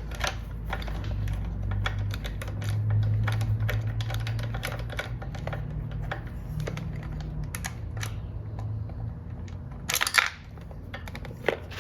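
Ratcheting wrench with a 10 mm socket clicking rapidly as it backs out a motorcycle taillight bolt, with a brief louder clatter near the end.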